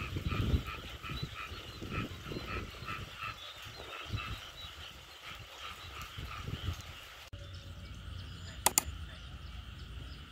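Frogs calling in a chorus of repeated croaks, about two or three a second, over a low rumble. About seven seconds in the sound cuts to a steady low hum, and near the end come two sharp clicks.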